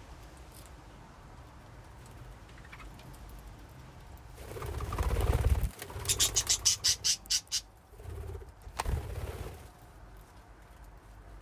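Budgerigars in a cage: after a few quiet seconds, a loud flurry of wing flapping and movement about halfway through, followed by a quick run of sharp, high pulses, about six a second, and a single tap, then it settles again.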